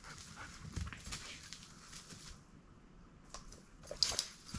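Faint, irregular rustling and crackling of movement through woodland brush, with a brief louder rustle about four seconds in.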